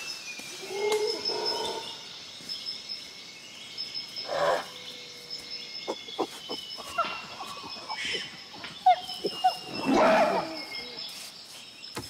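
Wildlife ambience: assorted animal and bird calls, with whistles that slide down in pitch, short chirps, and a steady high pulsing tone. A louder call comes about ten seconds in.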